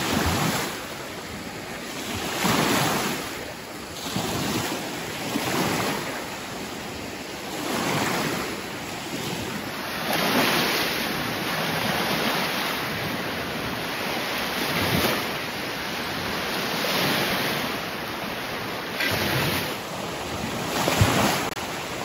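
Small Lake Michigan waves washing onto a pebble beach, swelling and fading every couple of seconds, with some wind on the microphone.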